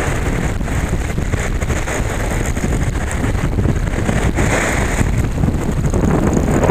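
Wind buffeting the microphone, a steady low rumble, over small surf washing up a sand beach.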